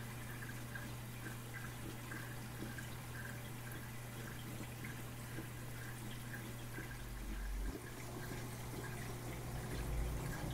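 Reef aquarium water dripping and trickling in a quick, regular pattern over a steady low pump hum, with two brief dull low bumps, one past the middle and one near the end.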